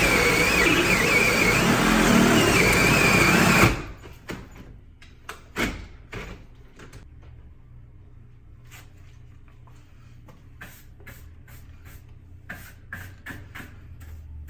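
Power drill with a hole saw cutting into a door, a loud grinding with a wavering whine, which stops abruptly about four seconds in. Then come scattered light clicks and knocks of tool handling.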